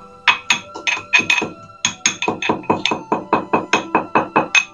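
Metal pestle pounding cardamom pods in a small metal mortar: rapid ringing metallic knocks, about five a second, with a short pause about one and a half seconds in.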